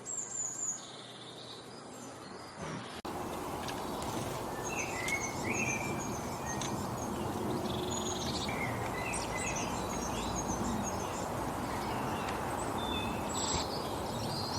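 Several small songbirds chirping and singing in short, repeated high notes over a steady outdoor hiss, which grows suddenly louder about three seconds in.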